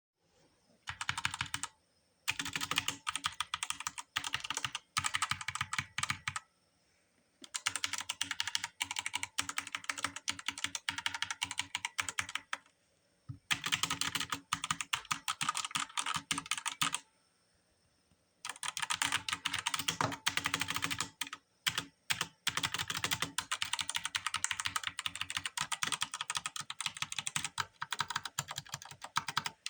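Gaming keyboard being typed on in fast runs of keystrokes, the runs broken by short pauses of up to about a second and a half.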